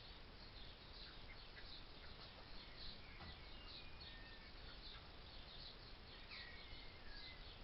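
Faint birdsong: many quick, high chirps and a few short falling whistles, over a steady hiss.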